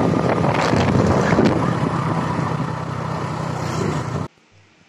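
Wind rushing over the microphone from a moving vehicle, with a steady low engine hum underneath; it cuts off abruptly about four seconds in.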